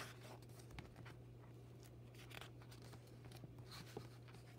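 Faint rustling and light handling noises of a picture book's paper page being turned, over a low steady hum.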